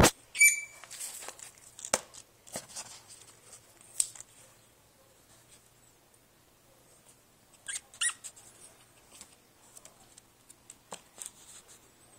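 Five-week-old Boston Terrier puppy giving short, high-pitched squeaks: one about half a second in and a quick pair around eight seconds. Between them, scattered rustling and light clicks as she scrambles over blankets in a plastic laundry basket.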